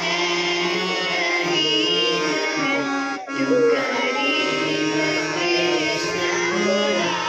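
A girl singing a song into a microphone over the sustained reed chords of a harmonium.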